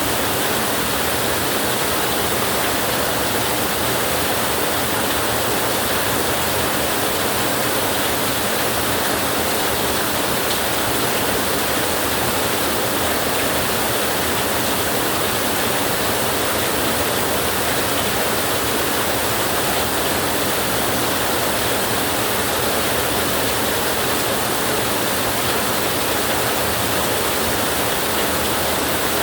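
Heavy rain falling steadily on a tin roof, an even downpour with no thunder.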